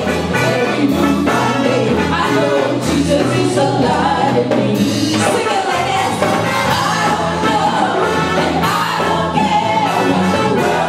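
Live gospel band playing an upbeat song with singing, bass and drums keeping a steady beat.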